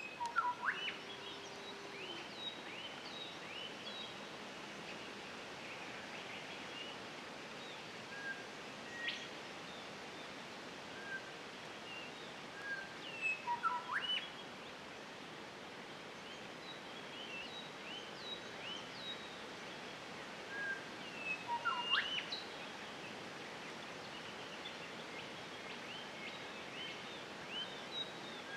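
Wild birds calling in the bush over a steady faint hiss: scattered short chirps and whistles, with sharp upward-sweeping calls about half a second in, around thirteen seconds and around twenty-two seconds.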